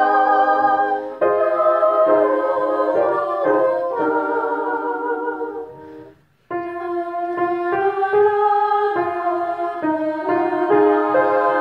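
Mixed choir of sopranos, altos, tenors and basses singing a rehearsal passage in sustained held notes with vibrato. The voices break off together for a moment about six seconds in, then come back in.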